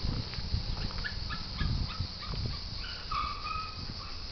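A series of short, high, squeaky animal calls, about three a second, then one longer drawn-out call near the end, over an uneven low rumble.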